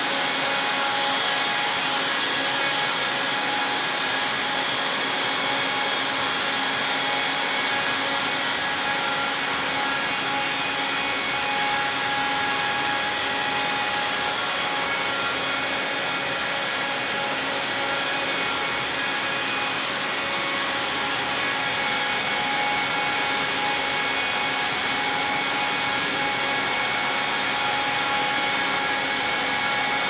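Circular knitting machines running at steady speed: a loud, even mechanical whir with several constant whining tones and no change in pace.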